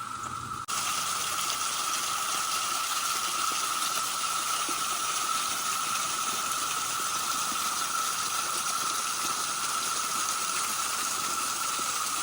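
Waterfall: the steady rush of falling water, cutting in abruptly under a second in and cutting off at the end.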